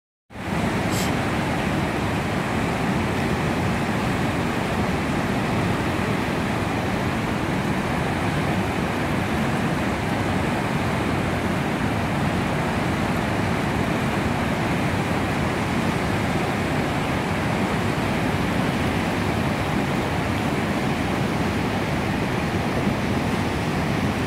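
Floodwater of the New River rushing over Sandstone Falls: a loud, steady rush of whitewater rapids at high water.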